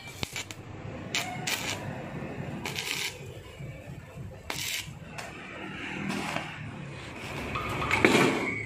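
Stick-welding arc crackling and sputtering in short bursts as a sheet-steel patch is tack-welded onto an old scooter's body. About eight seconds in there is a louder clatter as the metal body is shifted.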